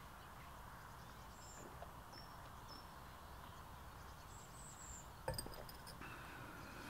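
Faint outdoor background with a few short, high bird chirps. About five seconds in, a stemmed beer glass is set down on a stone tabletop with a single sharp clink that rings briefly.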